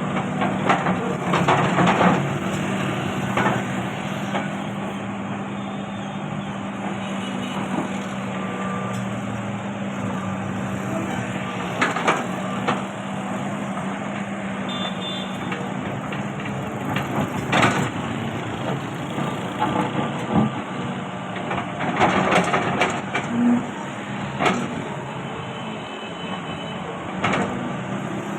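Hydraulic excavator's diesel engine running steadily, with short knocks and scrapes from the bucket working the soil at irregular intervals.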